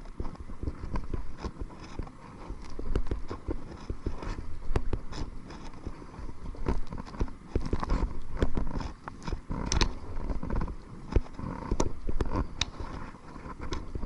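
Kayak paddling into a wind: irregular knocks and splashes of the paddle, with a constant low rumble of wind on the microphone.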